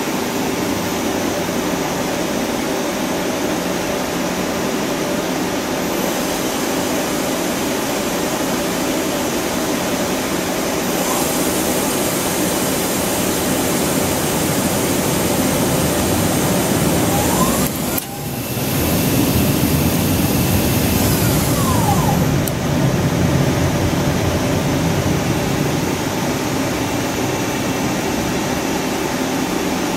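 Hyundai Kia SKT-250MS CNC turning center running with a steady machine hum. About halfway through, a spindle spins up with a faint rising whine and a louder hiss, then winds down with a falling whine a few seconds later.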